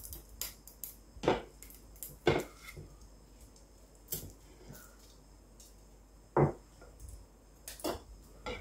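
Metal kitchen tongs clicking and knocking against a ceramic baking dish and plate while cooked eel meat is picked off the bone: a handful of short, separate knocks spread a second or more apart, with one duller thump a little past the middle.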